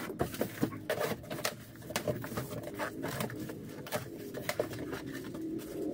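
Cardboard boxes and packaged medicines being handled and unpacked: irregular light knocks, taps and rustles, many in quick succession.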